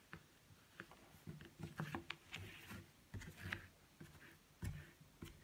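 Faint rustling and light irregular taps of a plastic weaving needle and wool yarn being worked through the warp strings of a cardboard loom, with the yarn scraping as it is pulled through.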